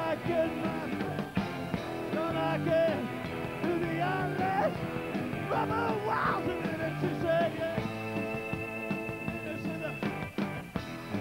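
Live garage rock band playing a song: electric guitars, drums and keyboard, with a singer's voice.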